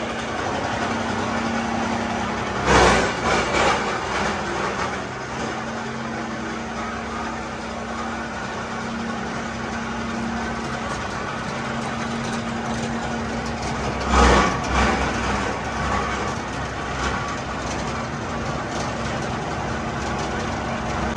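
Steady running hum of workshop machinery. Two loud rushing swells come about three seconds in and again about fourteen seconds in, as loads of black granules are dragged and tipped from cloth sheets onto a heap.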